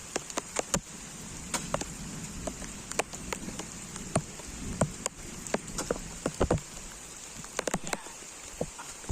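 Steady rain hiss with many irregular sharp taps of raindrops striking close by, several a second.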